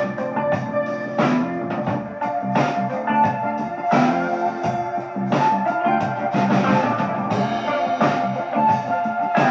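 Rock or blues music with guitar and drum kit, played back through a 71A single-ended triode tube amplifier of about 0.7 W driving loudspeakers.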